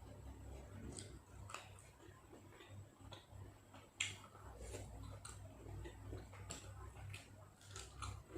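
Scattered soft clicks and mouth sounds of someone eating and chewing, with one sharper click about four seconds in.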